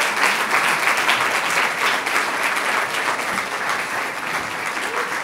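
Audience applauding, many hands clapping steadily, easing off a little near the end.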